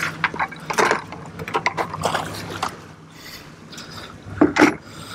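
Boat engine running steadily under a series of sharp knocks and clatter on the deck, as a freshly caught skipjack tuna and a plastic bucket are handled. The loudest knocks come about a second in and again near the end.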